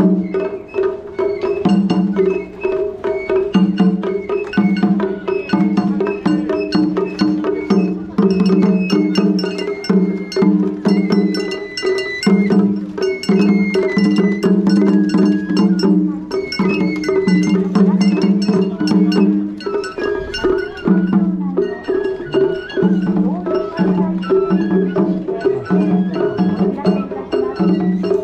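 Japanese festival float music (matsuri-bayashi): a dense, rhythmic pattern of drum strokes and sharp wooden clacks under a high, sliding flute melody.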